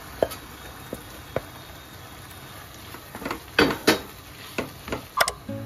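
Kitchen utensils clinking and knocking against a cooking pan: eight or so separate short knocks, with a quick cluster of the loudest a little past halfway. They come as cooked green peas go into the frying onion masala.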